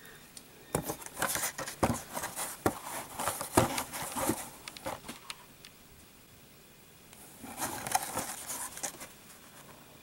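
Opened plastic blister pack and its card backing crinkling and clicking as they are handled, in irregular bursts of small clicks and rustles, with a lull in the middle.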